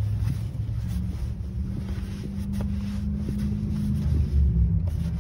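Low, steady engine rumble of road traffic, with a hum that steps up in pitch about a second in and fades near the end, mixed with wind buffeting the microphone.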